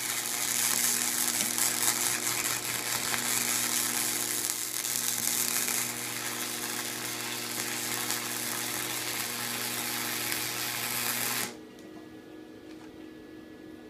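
Electric arc welder running a continuous weld, joining rebar to a steel billet: a steady crackling sizzle over a low electrical hum that stops abruptly near the end.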